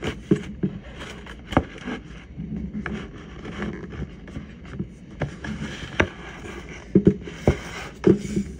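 Distant fireworks going off: an irregular run of sharp bangs and pops, the loudest near the end.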